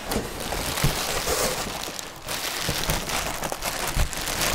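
Plastic packaging crinkling and rustling as it is handled, with a brief pause about two seconds in.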